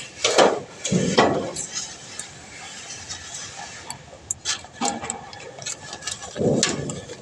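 Irregular knocks and scrapes of hand tools at work, a few separate strokes several seconds apart.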